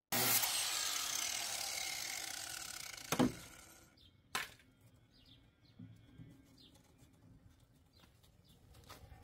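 Power saw cutting the truck's rusted sheet-metal body panel, starting abruptly, then fading and winding down to a stop about four seconds in, with a sharp knock just after three seconds. Afterwards only light clicks and taps.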